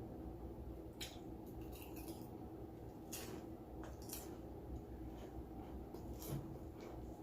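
Close-up eating sounds: chewing with several short, crisp crunches scattered through.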